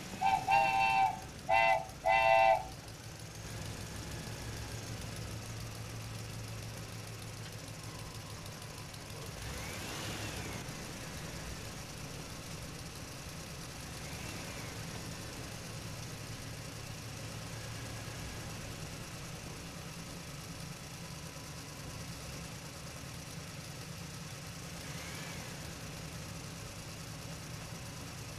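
Three short horn toots in quick succession near the start, followed by a steady low engine-like hum.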